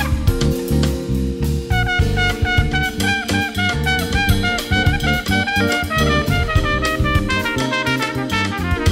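Live jazz-fusion band playing: a busy drum kit and electric bass under a sustained melody line, with brass in the mix.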